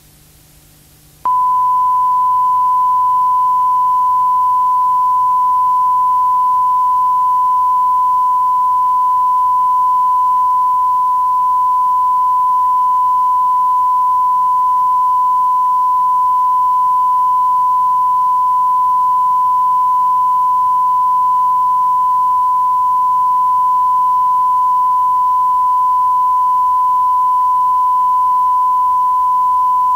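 Television station's test-card tone: one steady pure tone that switches on abruptly about a second in, after faint hiss, and holds unbroken, the sign that the channel is off the air for the night.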